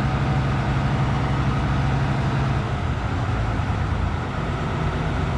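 Bizon Rekord Z058 combine harvester running steadily with a strong low engine hum; the tone of the hum changes a little over halfway through.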